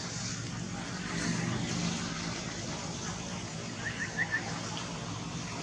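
Steady outdoor background noise with a low hum. About four seconds in come four quick, short, high chirps.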